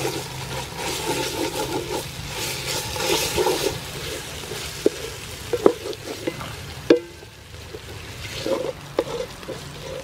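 A wooden ladle stirs dried sweet-pepper paste and pounded kroeung frying in oil in an aluminium pot, giving sizzling and scraping. It knocks sharply against the pot a few times in the second half, loudest about seven seconds in.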